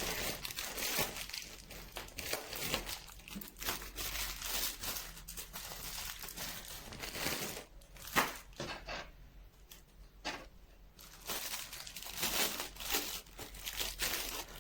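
Crinkling and rustling as a wig cap is handled and pulled on, in irregular stretches with small sharp clicks.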